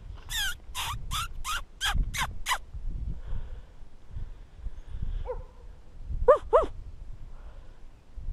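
Coyote yipping: a quick run of about seven short yips, each falling in pitch, then after a pause a few more yelps, the last two the loudest.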